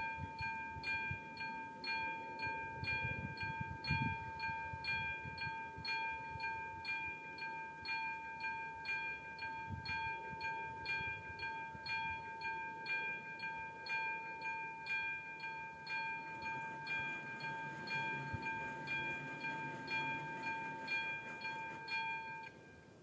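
Railway level-crossing warning bell ringing, struck about twice a second over a steady ring, warning of an approaching train. It stops abruptly near the end.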